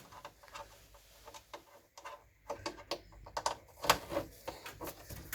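Faint, irregular clicks and light taps of cables and plugs being handled.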